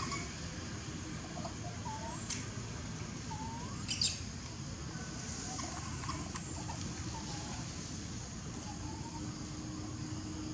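Scattered short, high chirps and squeaks from small animals over a steady outdoor background noise, with a couple of sharp ticks about two and four seconds in.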